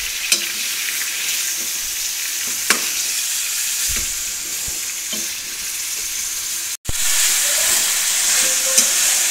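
Chicken pieces sizzling in hot ghee in a metal karahi while a spatula stirs them, with a few short clicks and scrapes of the spatula against the pan. The sizzle cuts out for an instant at about seven seconds and comes back a little louder.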